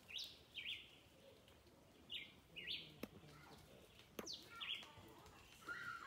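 Bird chirping: about six short high calls, each dropping quickly in pitch, mostly in pairs, over a quiet background, with two faint clicks around the middle.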